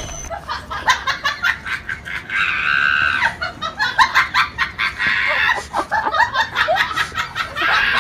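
Person laughing hard in rapid repeated bursts, with a longer high squeal about three seconds in.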